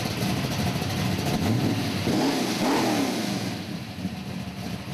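A car engine running, with a rev that rises and falls about two seconds in.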